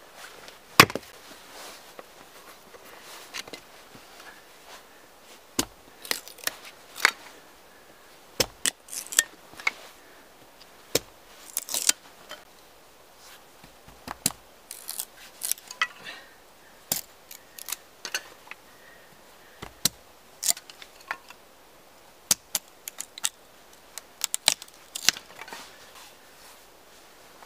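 Hatchet splitting firewood into kindling: a run of sharp, irregularly spaced cracks and taps of the blade in wood, the loudest about a second in.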